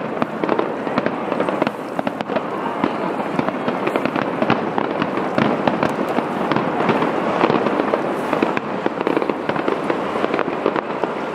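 Aerial fireworks shells bursting in quick succession: a dense, continuous run of bangs and crackles.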